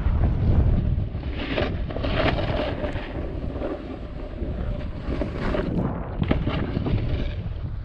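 Wind noise rumbling on the microphone of a camera carried by a snowboarder riding downhill, with the snowboard's edge hissing and scraping over the snow in several swishes as it turns.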